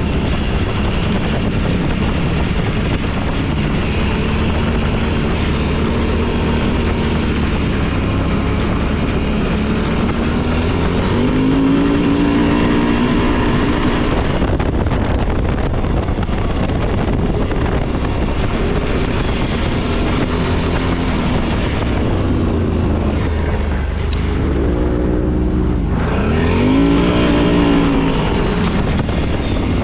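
Off-road vehicle engine running under way, over a steady rushing noise, with the engine revving up and back down about twelve seconds in and twice more near the end.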